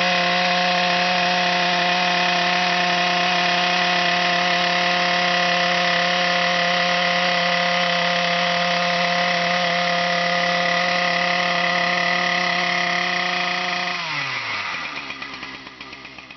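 Chainsaw fitted with an Ezy Rip attachment running at high, steady revs, ripping a fence post lengthways. About fourteen seconds in the throttle is released and the revs fall away.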